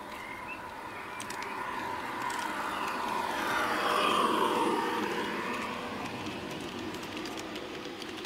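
Garden-railway model train passing close by: its electric motor and gears whine and its wheels rumble on the track, swelling to a peak about four seconds in and then fading as the pitch drops. Light clicks of wheels over rail joints come through.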